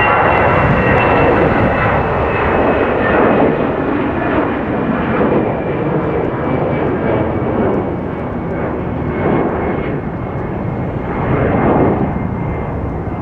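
Iberia Airbus A320-family airliner's twin jet engines at takeoff thrust as it lifts off and climbs away: loud, steady engine noise with a high whine that slowly falls in pitch, the rumble swelling and fading in waves.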